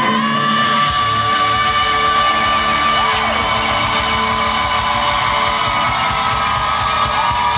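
A rock band plays loud and full in a concert hall, heard from the crowd. A long held high note slides down about three seconds in and is then taken up again, with yells and whoops over the music.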